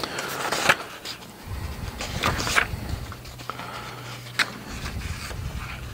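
Paper instruction pages being leafed through: soft rustling with a few sharp clicks, over a low steady hum through the middle.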